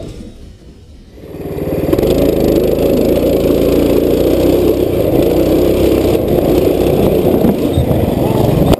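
Mini bike's small engine running loud and steady, heard up close from on the bike as it is ridden across grass; it comes in about a second in after a quieter start.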